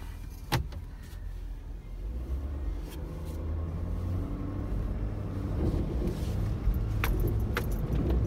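Ford F-250's 6.7-litre Power Stroke V8 turbodiesel heard from inside the cab, working under load as the heavy truck pushes into deep mud, its rumble growing louder over the seconds. A few sharp knocks from the cab, one about half a second in and two near the end.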